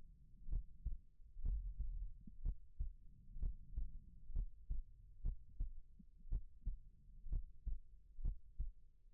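Heartbeat, a slow steady lub-dub of paired low thumps about once a second over a soft low rumble.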